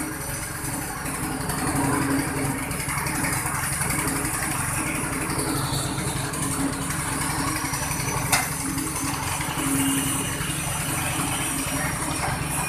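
Coconut husk peeling machine running steadily while a coconut is pressed down by a hand lever onto its spiked rollers to strip the husk. One sharp click about eight seconds in.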